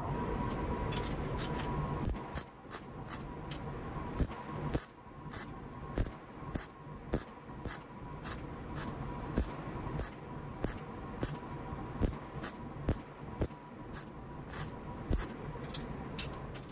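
MIG welder arc crackling steadily as a weld is laid on steel, with frequent sharp pops.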